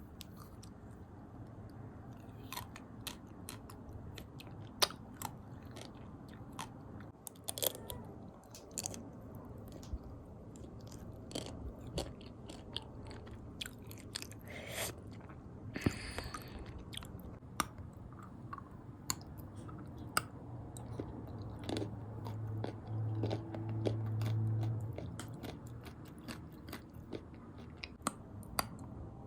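Close-miked chewing and crunching of chocolate walnuts, with many short, sharp crunches scattered throughout. A low hum lasts a few seconds about three-quarters of the way through.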